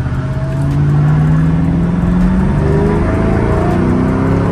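Ford Mustang GT's V8 pulling hard under full throttle, revs climbing, then a brief dip as the manual gearbox is upshifted about two and a half seconds in, after which the revs climb again.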